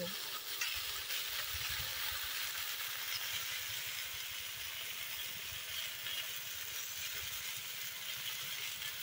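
Mixed vegetables frying in oil in a wok, a steady soft sizzle.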